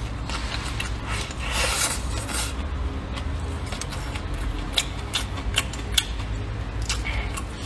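Close-up eating sounds of rice noodles: a slurp of noodles about a second and a half in, then wet chewing with a few sharp clicks, over a steady low hum.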